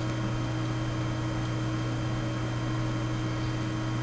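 Steady low electrical hum with an even background hiss, unchanging throughout.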